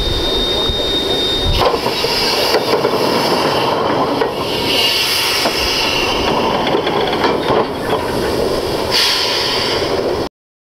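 Jordan spreader pushed along the track with its ditching wing cutting through tall weeds and brush: a steady rushing, scraping noise with scattered knocks and clanks. The sound cuts off abruptly near the end.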